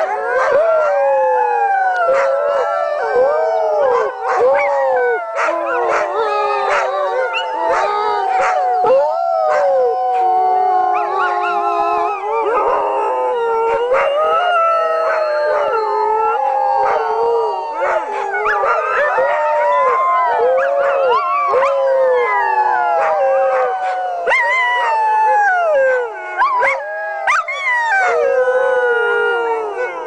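A pack of chained sled dogs howling together in chorus: many overlapping howls rising and falling in pitch without a pause.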